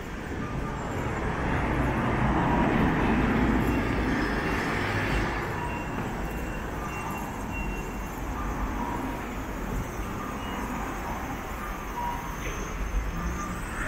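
City street traffic, with a vehicle passing close by and loudest about two to four seconds in.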